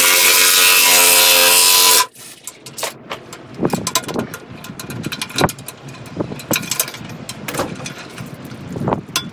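Electric impact wrench hammering on a pin-box mounting bolt for about two seconds, then stopping abruptly. Scattered metallic clicks and knocks of the wrench, socket and bolts being handled follow.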